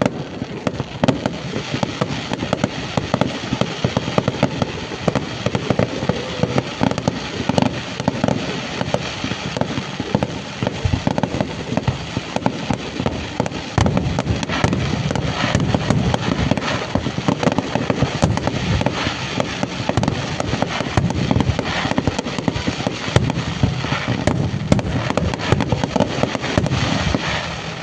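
Fireworks going off in a dense, continuous barrage of bangs and crackling, volley after volley with no pause, getting louder about halfway through.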